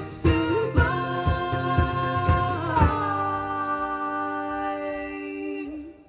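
Live band with singing ending a song: a few more beats with rhythmic hits, then a final chord held and ringing out until it stops just before the end.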